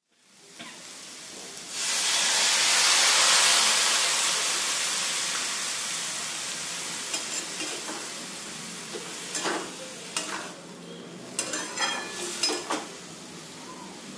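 Food sizzling in hot oil in a pan for a ridge gourd bhaji. The sizzle jumps up sharply about two seconds in and slowly dies down. Later, a spatula knocks and scrapes against the pan several times as it is stirred.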